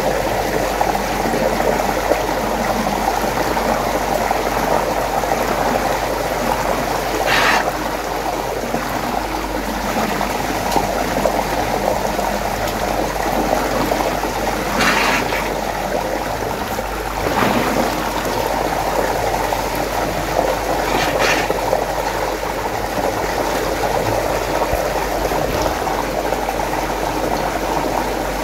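Water running and swirling steadily in a whirlpool, with four brief sharper sounds spaced several seconds apart.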